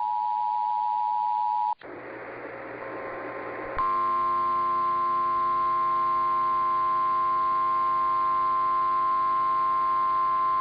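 Emergency Alert System two-tone attention signal, a steady pair of tones, cuts off abruptly about 2 s in. After about 2 s of hiss, a second EAS attention signal starts about 4 s in and holds. This one is harsher, with many overtones.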